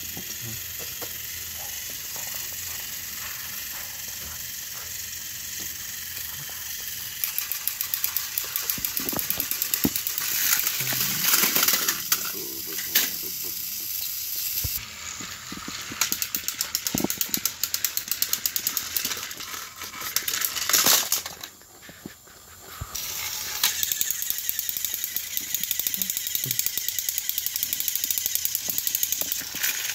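Small electric motors of battery-powered Thomas & Friends toy engines running, the engines straining against each other on plastic track. A steady whir turns after about seven seconds into fast, even clicking of the gears and wheels, louder, with a short lull a little after two-thirds through.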